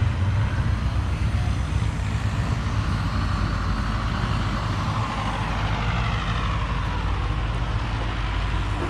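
Road traffic: a steady low rumble, with a vehicle passing in the second half.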